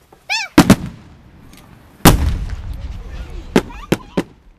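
Aerial fireworks shells bursting. Two sharp bangs come less than a second in, then a louder boom about two seconds in that rumbles on and fades over a second or so, then three quicker cracks near the end. A brief high-pitched call is heard just before the first bangs.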